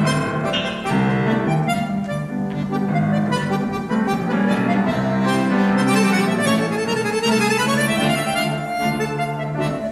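Accordion and grand piano playing a live duet, the accordion carrying sustained chords and melody over the piano.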